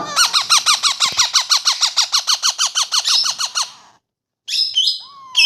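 Baby ring-necked parakeet giving a fast, even run of short begging calls, about eight a second, while being hand-fed. The calls stop a little before four seconds in, and a couple of short squawks follow near the end.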